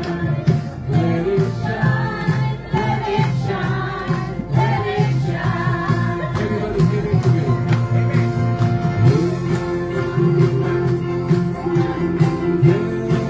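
Christian worship song: singing over instruments with a steady beat.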